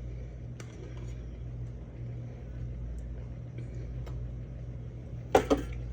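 Steady low hum, with a few faint light clicks and a short louder sound near the end.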